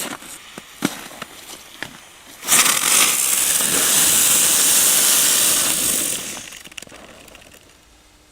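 Old spinning firework from 1997: a few scattered crackles and pops, then about two and a half seconds in it ignites into a loud, steady hiss of burning composition lasting about four seconds, which then fades away.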